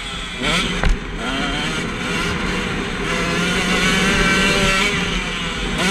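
KTM 125 SX single-cylinder two-stroke motocross engine revving hard under throttle. The revs rise about half a second in, a thump comes just before the one-second mark, and then the engine holds high and fairly steady revs.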